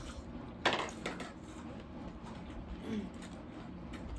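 Tableware clinking during a meal: one sharp clink about two-thirds of a second in, a fainter one just after, then quieter handling sounds.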